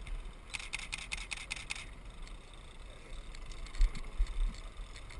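A quick run of about a dozen sharp mechanical clicks lasting just over a second, over a steady low rumble.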